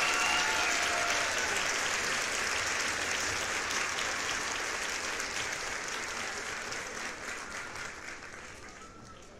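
A roomful of children clapping, with a few high shouts near the start; the applause slowly dies away.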